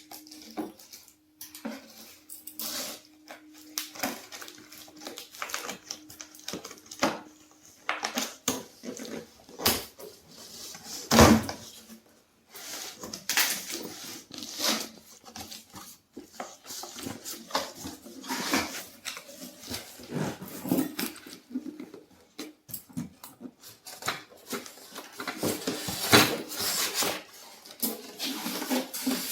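Packaging of a new microwave oven being opened and handled: plastic and packing material rustling and crackling, with scattered knocks and one loud thump about eleven seconds in. A faint low hum sits underneath for the first several seconds.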